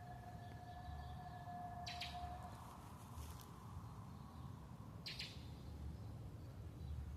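Two short, high chirps about three seconds apart, like small bird calls, over a quiet low background hum. A steady held tone stops about two and a half seconds in.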